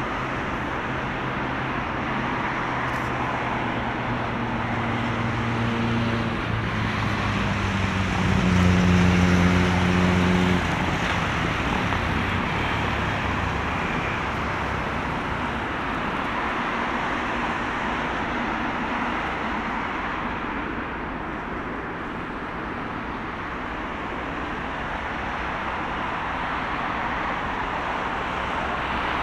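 Boeing 777F's GE90 turbofan engines running at low power as the freighter rolls slowly after landing: a steady jet rush, with a low drone that swells about eight seconds in and dies away a few seconds later.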